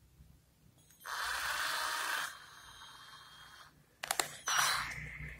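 A cordless drill fitted with a hex nut-setter socket bit being handled. An even hiss lasts a little over a second, starting about a second in, and a cluster of sharp clicks and a short scrape of plastic and metal follows near the end.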